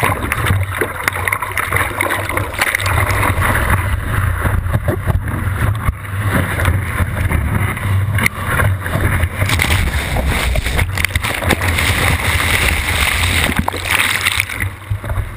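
Rushing water and surf close to a surfboard-mounted GoPro, with wind buffeting the microphone as the board rides a wave and splashes of water over the camera.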